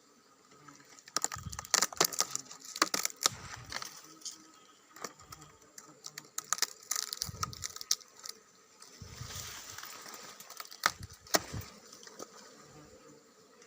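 Irregular crackling, scraping and sharp knocks from breaking into and pulling at the rotten wood of a hollow old tree-fern trunk to reach a wild Asian honeybee nest, with dull low bumps between them. The clicks come in clusters, densest about a second in, around the middle and near the end.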